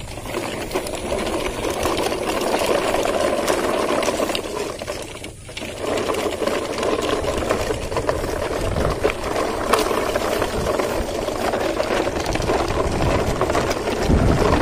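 Plastic toy truck with a long string of plastic trailers rolling over gravel: a steady, dense rattling and crunching of small wheels on loose stones, breaking off briefly about five seconds in.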